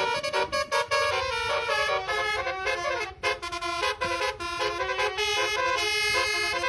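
A Dua Putra bus's 'telolet basuri' musical horn playing a fast tune of short stepped notes, several tones sounding together.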